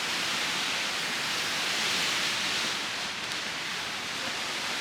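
Steady rushing wind on an exposed mountain ridge, swelling slightly about two seconds in.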